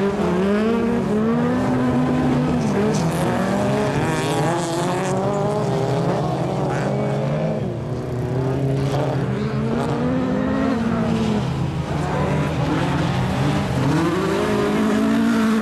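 Several dirt-track race car engines running together as a pack, their pitch repeatedly rising and falling as they accelerate and lift off through the corners.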